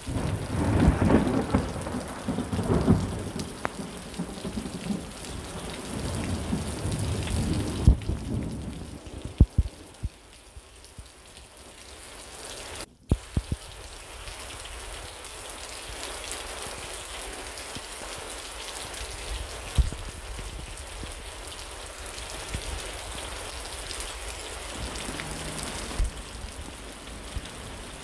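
Thunderstorm: a long roll of thunder rumbles through the first several seconds and fades, leaving heavy rain falling steadily, with occasional sharp taps of drops hitting a nearby surface.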